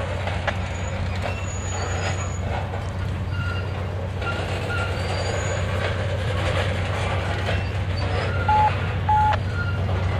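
Loaded covered hopper cars of a potash train rolling past with a steady low rumble, wheel-on-rail clicks and short wheel squeals now and then. Two brief high tones near the end are the loudest sounds.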